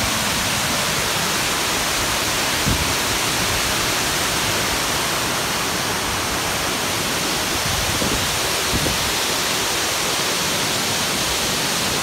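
Water pouring over the broad lip of a dam weir, a steady rushing noise with a couple of faint low bumps, about three seconds in and again near eight seconds.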